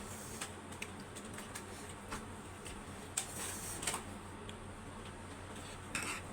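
Eating sounds: scattered small clicks and taps, as of utensils against a plate and chewing, with a short hiss about three seconds in.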